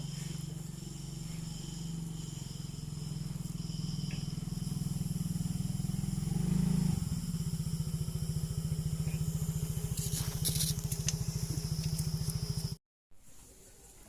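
A small engine running steadily with a fast, even pulse, cut off abruptly near the end.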